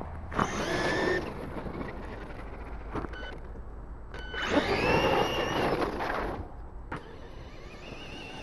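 Battery-powered 4x4 RC truck driving in snow: its electric motor whines up twice in bursts of one to two seconds, with the tyres churning and spraying snow. A rising, wavering whine returns near the end.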